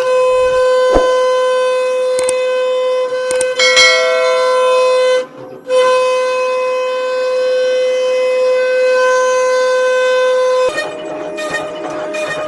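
CNC router spindle giving off a steady high-pitched whine, broken off briefly about five seconds in, then turning noisier near the end.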